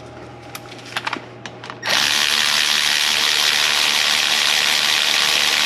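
A power ratchet runs steadily for about four seconds, starting about two seconds in, driving in the brake hose bolt on a rear brake caliper; a few light tool clicks come before it.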